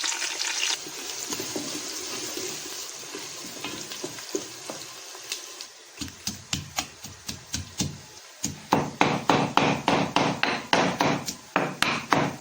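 Onions sizzling in melted ghee, loudest at first and fading. About halfway through, regular sharp knocks begin, about four a second and louder near the end.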